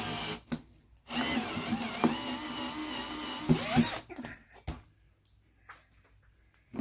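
Bosch cordless drill running a Helicoil kit drill bit into a float-bowl screw hole of a Suzuki GT750 carburetor, opening the hole out for a thread insert. There is a short burst of the motor, then a steady run of about three seconds that stops, followed by a single knock.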